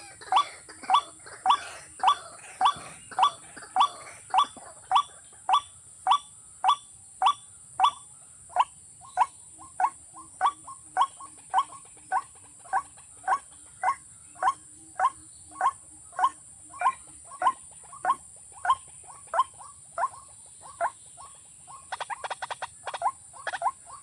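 A rail, a watercock or waterhen, calling over and over, about two short rising calls a second, over a steady high-pitched hiss. A quick run of clicks comes near the end.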